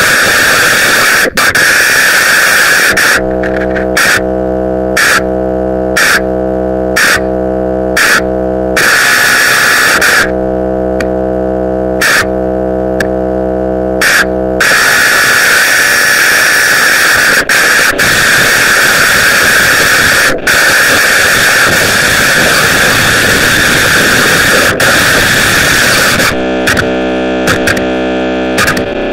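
Loud, harsh electronic noise music: a dense hiss with a bright band in the upper middle. Twice, and again near the end, it gives way to a steady low droning chord, cut through by short blasts of hiss about once a second.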